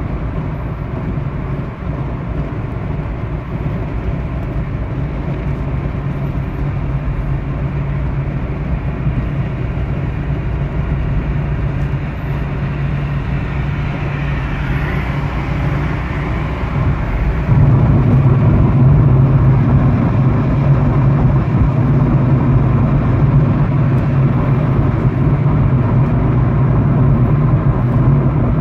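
Steady road and engine noise inside a car cruising at about 55 mph: a low drone with tyre hiss, which grows louder a little past halfway through.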